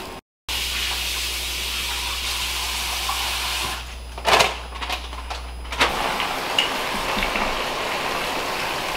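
Breaded mahi strips frying in hot oil in a pot: a steady sizzle with small crackles. It is broken around the middle by a couple of sharp knocks.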